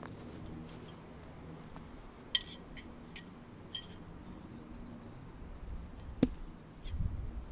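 Steel throwing knives clinking against each other in hand: four short metallic clinks, then a single sharp knock about six seconds in.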